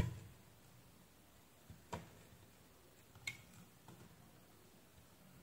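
Faint sharp clicks, the loudest right at the start and three smaller ones over the next four seconds, as a utility knife blade cuts through the rubber overmold of a USB-C charger cable's connector.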